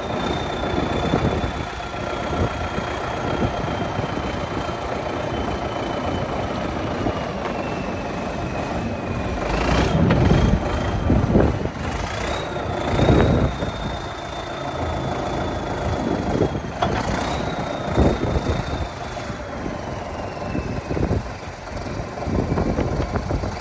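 Case 780 backhoe's diesel engine running, with a high whine that slowly sinks in pitch and jumps back up twice. Several loud knocks or surges come through the middle and near the end.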